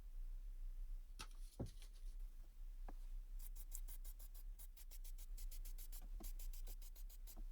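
A few light knocks, then from about halfway in a fast run of short scratching strokes on wood, about seven a second.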